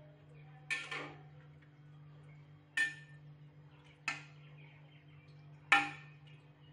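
A metal slotted spoon clinking against the side and rim of a pressure cooker while stirring rice, about five sharp clinks with short ringing; the loudest comes near the end.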